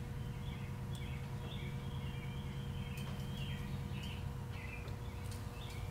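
Faint bird chirps repeating over a steady low hum, with a few light clicks from hand work at the small terminal nut on the tractor's generator.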